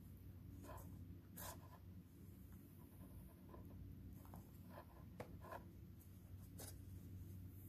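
Near silence: a steady low room hum, with several faint brief scratchy noises scattered through it.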